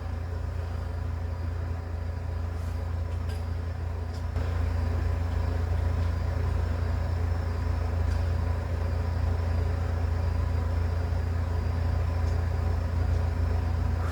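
A steady low hum, getting a little louder about four seconds in.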